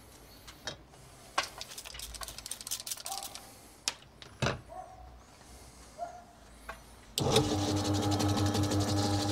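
Scattered clicks and knocks as a bowling ball is handled on a ball spinner. About seven seconds in, the spinner's electric motor switches on suddenly and runs steadily with a constant hum, spinning the ball.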